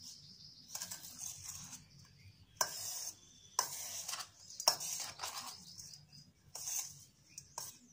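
Metal spoon stirring a crumbly mix of breadcrumbs and chopped egg in a stainless steel bowl: irregular scraping strokes, with sharp clicks of the spoon against the bowl.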